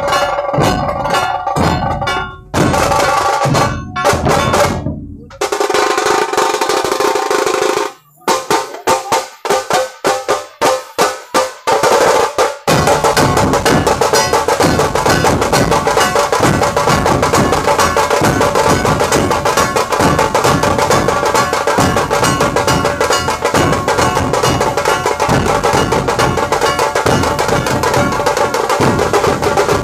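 Dhol tasha ensemble playing: large stick-beaten dhol barrel drums with small tasha drums. After a short break about eight seconds in, the troupe plays a string of separate unison strokes that come closer together, then from about thirteen seconds breaks into fast, continuous drumming.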